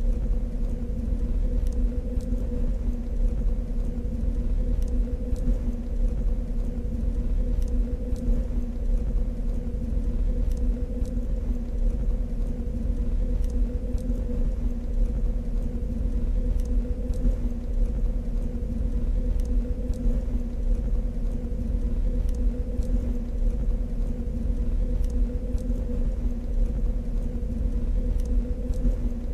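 Sci-fi base background ambience: a steady low rumble with a constant machine-like hum on top and faint, scattered small clicks, unchanging throughout.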